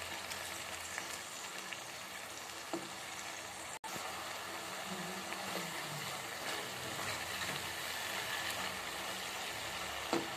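Chopped tomatoes in oil sizzling and bubbling in a kadhai, with a steady frying hiss and a spatula stirring through the masala. The sound cuts out for an instant about four seconds in.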